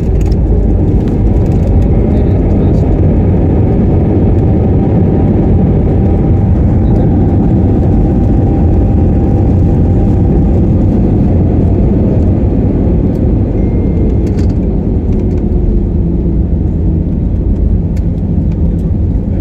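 Airliner jet engine noise heard from inside the cabin while on the ground: a loud, steady roar and rumble with a faint whine that slides down in pitch a little past halfway.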